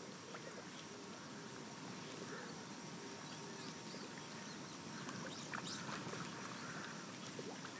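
Faint lapping of shallow water, with a few small splashes and ticks about five to six seconds in.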